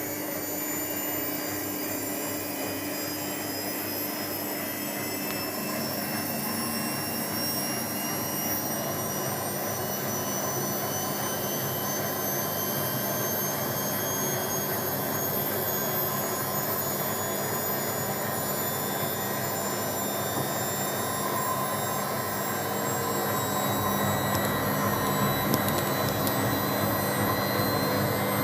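Whirlpool AWOE 91402 washing machine on its 600 rpm spin. The drum motor runs steadily, and its high whine rises slowly in pitch as the drum speeds up. It gets a little louder near the end.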